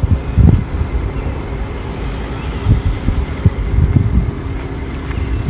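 Wind buffeting the microphone in uneven gusts of low rumble, with a faint steady low hum underneath.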